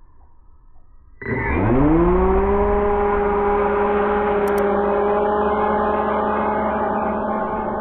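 RC airboat's brushless motor and air propeller spinning up sharply about a second in, pitch rising fast, then running at a steady speed with an even tone.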